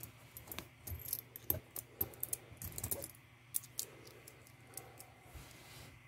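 Wheat pennies clicking and clinking as they are picked up and set down one after another: a scatter of small, sharp taps, busiest in the first three seconds and thinning out after.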